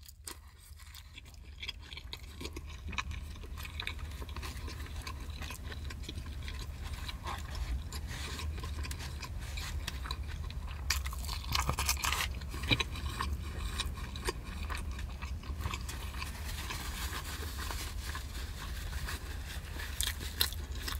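A person chewing and eating close to the microphone, with scattered small clicks and scrapes as the food is handled, over a low steady hum.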